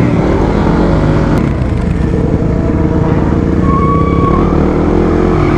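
Motorcycle engine running steadily while riding, at an even, loud level.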